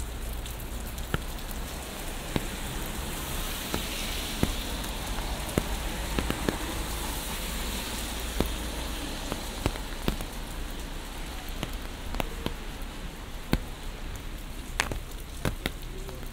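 Steady rain hiss with irregular sharp taps of drops striking an umbrella overhead, over a low steady city rumble.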